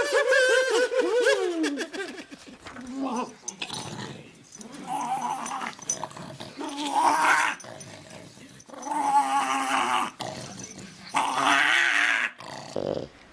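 A dog growling and whining in several separate bursts, a couple of seconds apart, after a falling, drawn-out call at the start.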